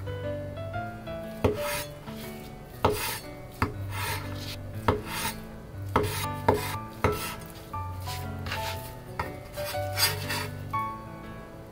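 Chinese cleaver chopping through thick fried tofu (atsuage) onto a bamboo cutting board: about a dozen sharp knocks at uneven intervals. Background music with a steady bass line plays under it.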